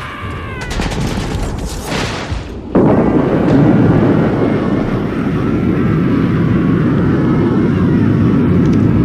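War sound effects: gunfire and booms, then a bit under three seconds in a sudden loud, steady, dense rumbling noise takes over.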